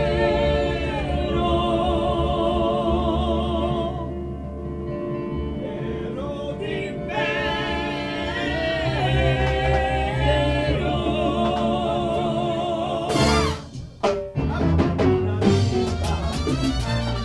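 Live salsa band rehearsal: a male lead singer holds long notes with a wide vibrato, with backing voices singing along and a keyboard underneath. About thirteen seconds in, the held singing breaks off and a run of quick, sharp accented hits begins.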